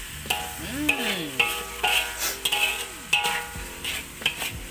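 Metal spatula stirring and scraping fried goat meat and sambal around a wok, with repeated clacks of the spatula against the pan over a low frying sizzle.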